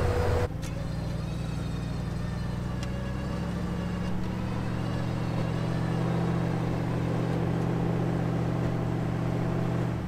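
A vehicle engine running steadily at low revs, its pitch stepping up slightly about three and a half seconds in.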